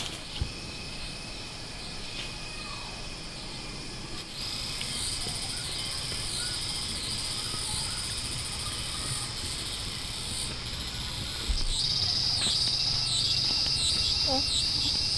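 Forest insects shrilling in a steady high chorus that grows louder in two steps, with a few short bird chirps near the end.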